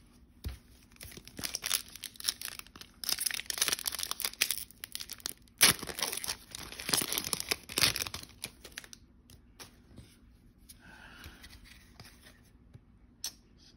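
Foil trading-card pack being torn open and crinkled, a run of rustling, tearing bursts through the first half with a sharp click partway through. After that come quieter, scattered sounds of cards being handled.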